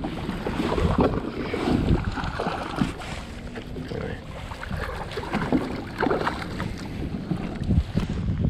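Kayak moving across choppy water, with wind buffeting the microphone, water splashing against the hull and scattered short knocks.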